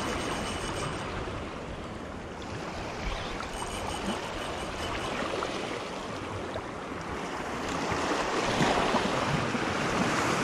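Small waves washing and splashing against the rocks of a jetty, swelling louder for a couple of seconds near the end.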